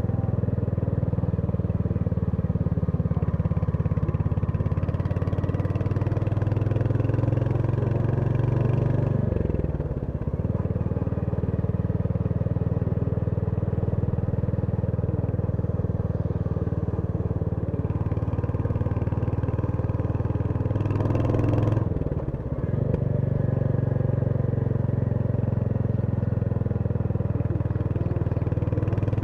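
Royal Enfield Hunter 350's single-cylinder engine running steadily on the move. The engine note drops briefly twice, about ten seconds in and about twenty-two seconds in, then settles back to its steady pitch.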